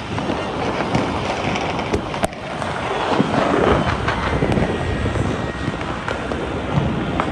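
Many distant fireworks popping and crackling together in a dense, continuous din, with one sharper bang about two seconds in. Wind rumbles on the microphone underneath.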